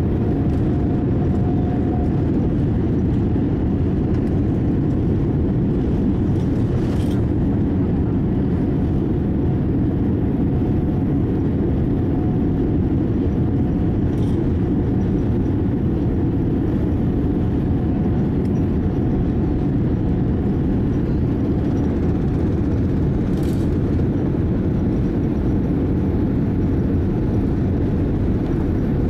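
Cabin noise of a Boeing 787-8 rolling on the runway: a steady low rumble of jet engines and wheels, with a few faint clicks.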